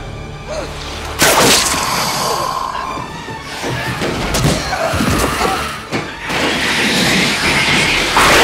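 Film score music mixed with sound effects of a struggle: a sudden loud crash about a second in, then more thuds and crashes, with another loud hit near the end.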